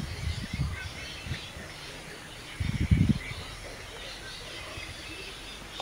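Faint bird chirps in the background, broken by two short bursts of low rumbling noise, one at the start and one about three seconds in.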